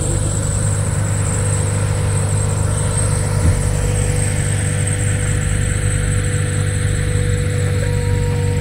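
An engine running steadily with an even, unchanging hum, with one short knock about three and a half seconds in.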